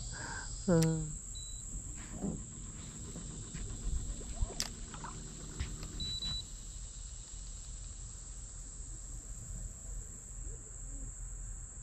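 Summer insects, crickets or cicadas, droning steadily in one high pitch. About a second in there is a short falling vocal sound, and near the middle a single sharp click.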